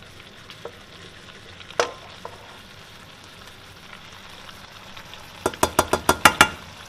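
Chicken pieces frying gently in sauce in a stainless frying pan, a faint steady sizzle, with a single knock about two seconds in. Near the end a spatula stirs the chicken, clacking against the pan about ten times in quick succession.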